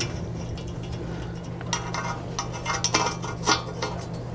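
Metal clinking and tapping as the new front wheel hub's mounting nuts are fitted and started on the studs by hand behind the steering knuckle of a Ford F350. The clinks are sparse at first and come thick and irregular from about two seconds in, over a steady low hum.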